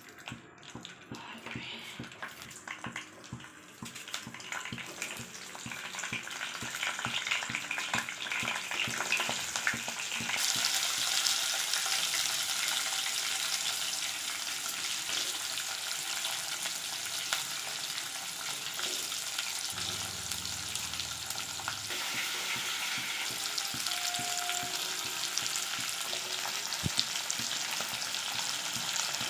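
Coriander seeds and cashews crackling in hot oil in a nonstick wok. About ten seconds in, once chopped onions go into the pan, it becomes a loud, steady sizzle.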